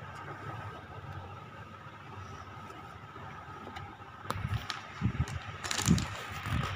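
A plastic power strip being handled and set down beside the sewing machine: a few short knocks and rattles in the second half, the loudest near the end, over steady room noise.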